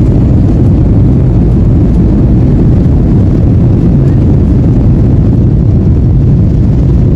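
Airbus A320 engines at takeoff thrust, heard inside the cabin as a loud, steady low roar through the takeoff roll and lift-off.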